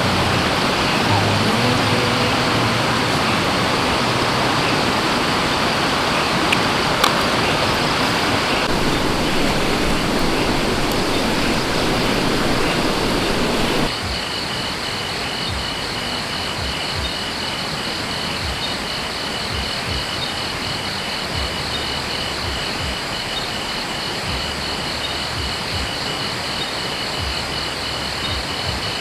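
Forest stream rushing steadily. About 14 seconds in it cuts to a quieter spot where the water is softer and insects trill in a fast, even, high-pitched pulse.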